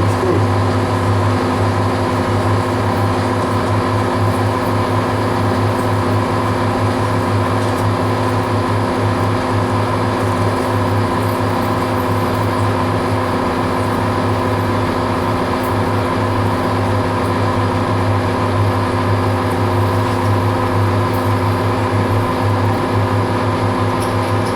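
Metal lathe running steadily under power, its motor and gear train giving a constant hum with a strong low drone, while a screw is parted off the bar stock.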